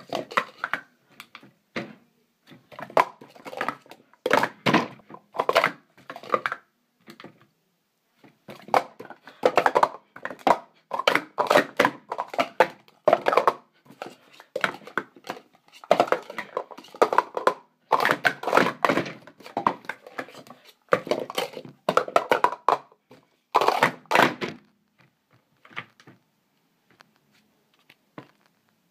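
Plastic Speed Stacks cups being stacked up and down fast on a stack mat: dense runs of clacking cup on cup, with a break of about a second and a half about seven seconds in. The clicks thin out over the last few seconds.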